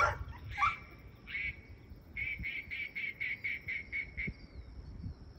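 An animal calling: one short high call, then a quick run of about ten short, even, high-pitched calls at about five a second, stopping a little after four seconds in.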